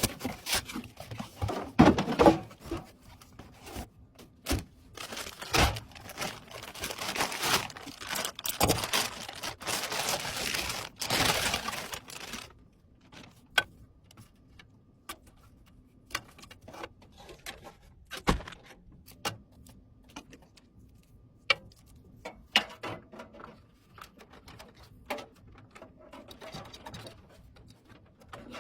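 Hands handling PC parts and their packaging: dense rustling, crinkling and scraping for about the first twelve seconds, then scattered sharp clicks and light taps of parts being fitted.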